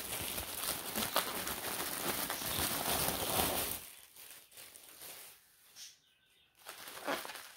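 Clear plastic wrapping crinkling as it is handled, a dense crackling rustle for about four seconds, then only occasional fainter rustles.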